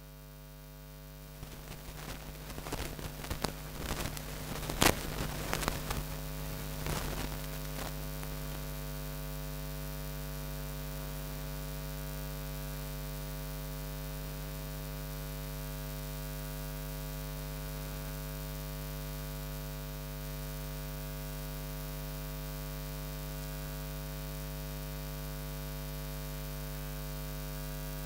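Steady electrical mains hum throughout. In the first several seconds there is a cluster of sharp taps and scrapes of chalk writing on a blackboard; the loudest tap comes about five seconds in.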